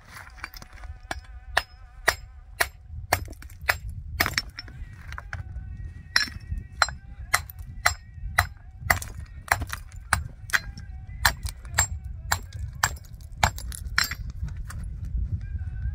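A hammer striking stone over and over: sharp clinking knocks, about two a second.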